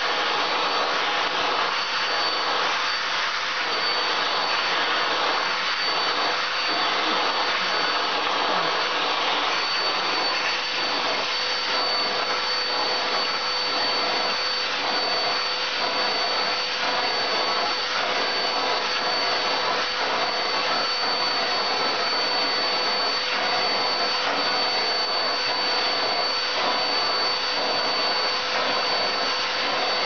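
Household vacuum cleaner running steadily with a high motor whine, its hose nozzle being stroked over a cat's fur. The sound shifts faintly about once a second with the strokes.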